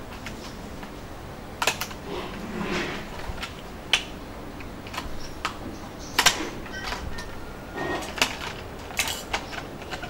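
Scissors snipping through the thin plastic wall of a used mineral-water bottle to cut out a hole. There are irregular sharp snips and plastic crackles, about six of them, a second or two apart.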